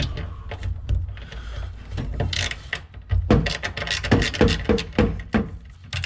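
Hand tools working on the steering column's mounting bolts under a car's dashboard: irregular metal clicks and scrapes, coming quicker from about two seconds in.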